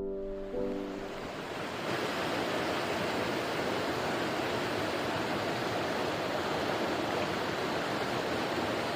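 Steady rushing of fast-flowing water, an even unbroken roar.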